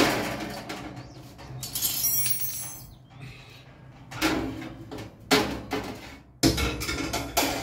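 Wire oven grill racks and a metal tray clattering and scraping against a cooker's steel storage drawer as they are laid in: a series of knocks, a ringing metallic scrape about two seconds in, and a louder run of clatter near the end.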